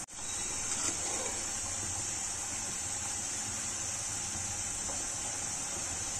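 Steady high hiss of butter sizzling in a kadai as it clarifies into ghee.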